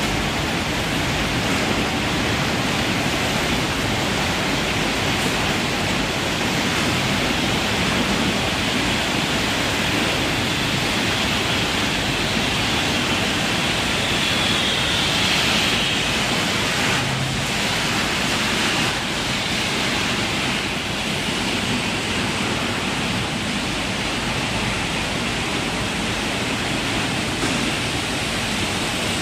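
Canteen tray-washing machine running, with a steady rush of spraying water.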